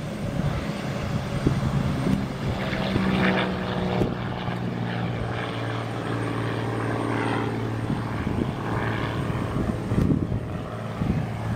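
Cessna 210N Centurion II's six-cylinder piston engine and propeller at takeoff power, a steady drone as the plane climbs out just after lift-off.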